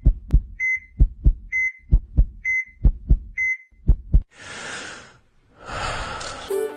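Heartbeat sound effect, a double thump just under once a second, with a short heart-monitor beep after each beat, about four times. It gives way about four seconds in to two whooshes.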